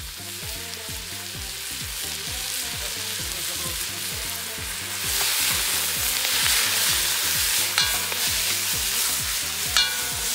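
Chopped onions frying and sizzling in hot oil, getting louder about five seconds in, with two short clinks near the end.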